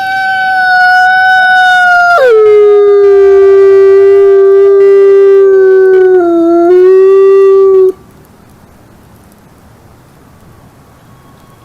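A wolf giving one long howl. It starts on a high held note, drops sharply to a lower note about two seconds in, holds it, then cuts off suddenly near the end, leaving only a faint hiss.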